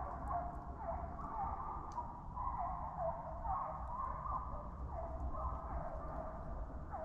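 A pack of hounds baying as they run a deer. Many voices overlap, each call a short note that drops in pitch, a few calls a second.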